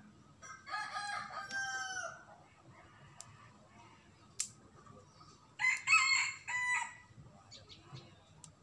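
Rooster crowing twice: a first crow about half a second in, and a louder crow in three parts past the middle. A single sharp click falls between them.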